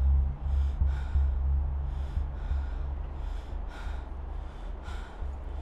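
A man breathing hard in repeated short, gasping breaths, over a steady low rumble.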